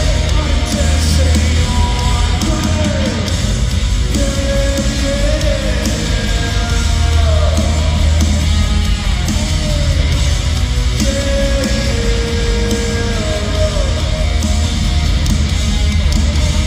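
Live rock band playing loudly through an arena sound system, heard from high in the stands: heavy bass and drums under a melody line that slides up and down in pitch, with some shouted vocals.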